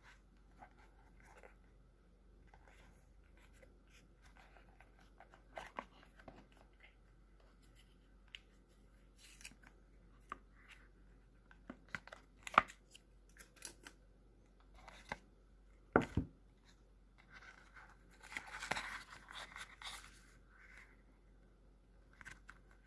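A leather bifold wallet and its cardboard gift box being handled: scattered light taps and clicks, a couple of sharper knocks, and a short stretch of rustling a little past the middle.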